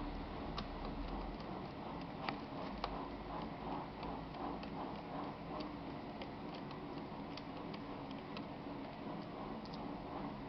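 Scattered light clicks and taps, with a faint repeating patter through the middle, from a Phillips screwdriver and small laptop parts being worked on by hand. A few sharper clicks come about two to three seconds in.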